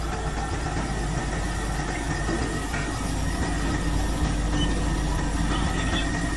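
Sewer jetter's engine running steadily at low throttle, a constant low hum with a faint high whine over it.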